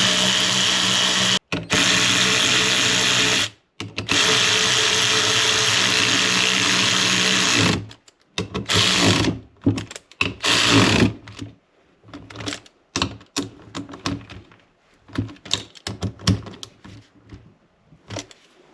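A power drill running in three long steady runs with short pauses, driving in the bolts that mount a new windshield wiper motor. Two shorter runs follow, then scattered tool clicks and knocks.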